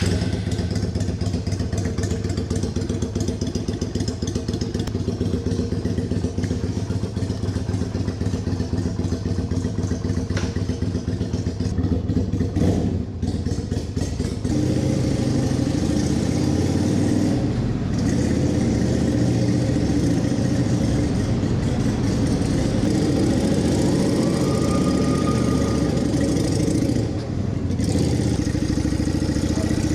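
Yamaha Virago 250 (XV250) air-cooled V-twin running through its exhaust, a steady engine note; about halfway through, the note turns louder and fuller.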